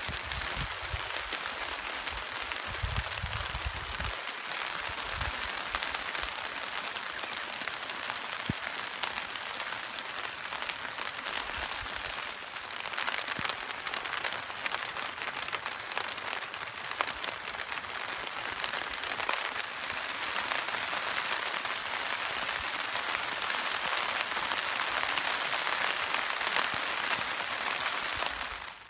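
Steady rain falling on the garden's plastic mulch and chili plants, a dense patter of drops. Low rumbles of wind on the microphone come in the first few seconds.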